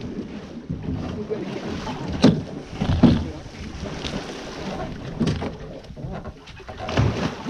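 Water splashing and churning against an aluminium boat's bow, with a few sharp knocks on the hull, about two seconds in, again a second later and near the end.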